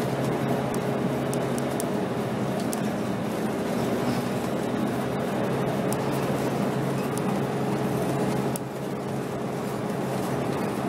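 2007 Scania K270 city bus's diesel engine droning steadily while the bus is under way, heard from inside the bus, with light rattles. The sound eases off a little about eight and a half seconds in.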